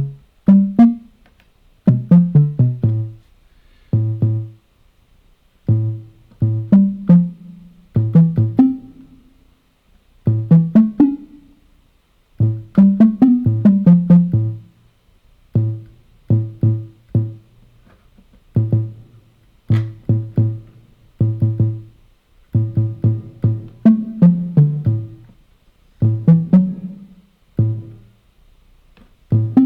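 Korg NTS-1 digital synthesizer playing short, low, plucked-sounding notes in irregular phrases, some bending in pitch, with its reverb effect switched on.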